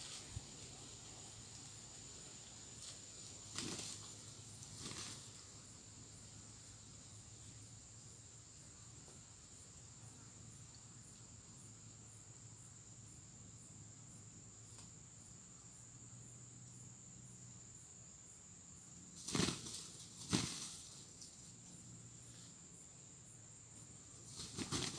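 Rooster's wings flapping in short bursts: two soft ones a few seconds in and two louder ones about a second apart late on, over a faint steady high drone of insects.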